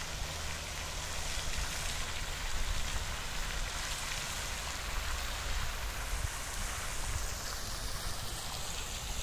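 Pond fountain jet splashing steadily into the water, a constant watery hiss with a low, uneven rumble underneath.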